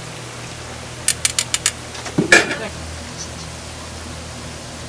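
Ropes of churro dough deep-frying in hot oil with a steady sizzle. Metal tongs click five times in quick succession against the stainless fryer about a second in, then give one louder clank.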